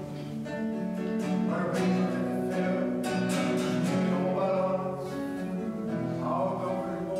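Live music: a nylon-string classical guitar playing, with a singing voice holding long notes over it.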